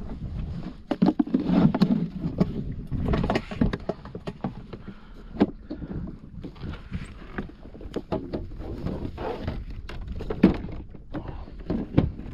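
Irregular clicks, knocks and rustling from gear being handled aboard a plastic fishing kayak, with a hand at a small cooler's lid.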